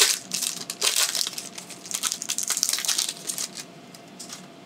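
Foil wrapper of a Pokémon TCG booster pack crinkling and tearing as it is opened by hand, in a run of irregular rustles that dies down after about three and a half seconds.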